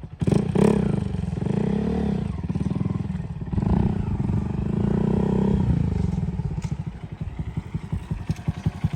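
2022 Honda Grom's single-cylinder four-stroke engine revving up twice as the bike is ridden, then dropping back to an even, lumpy idle for the last few seconds.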